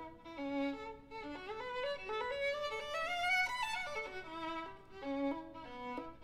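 Solo violin playing a bowed melody, its notes climbing step by step through the middle, peaking and dropping back down about two-thirds of the way in.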